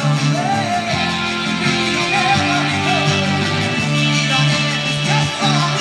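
Background music: a song led by guitar.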